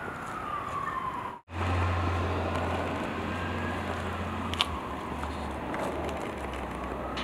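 Emergency vehicle siren wailing slowly up and down in pitch over street traffic noise, with a low steady hum underneath. The sound cuts out for an instant about a second and a half in.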